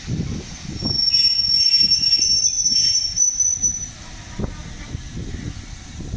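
Steam-hauled train with LMS Royal Scot 46115 Scots Guardsman rolling slowly past over a low rumble, its wheels giving a loud, steady, high-pitched squeal that starts about a second in and stops about three seconds later. A single knock follows about four and a half seconds in.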